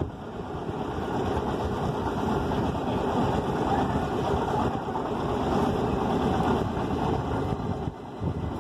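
Passenger train coaches rolling past slowly as the express pulls into the station, with a steady rumble and rattle of the wheels on the rails. The noise eases briefly near the end.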